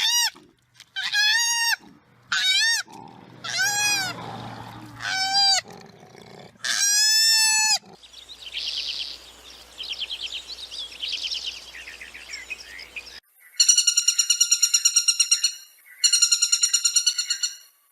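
A series of animal calls: about six short calls, each rising and falling in pitch, then a few seconds of soft high chittering, then two runs of rapid, high, buzzing pulsed calls near the end.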